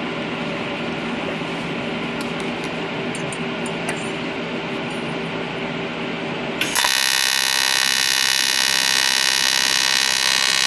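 A welder hums steadily. About two-thirds of the way in, a welding arc strikes on an aluminium charge pipe and buzzes loudly and harshly with a bright hiss.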